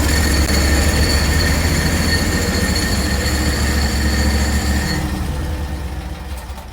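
Gas chainsaw running at full throttle while cutting wood, with a steady high whine over the engine. About five seconds in the whine stops and the engine winds down.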